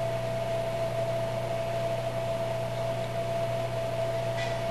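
Electric fireplace running: a steady hum and whir from its heater fan, with a constant whine above it.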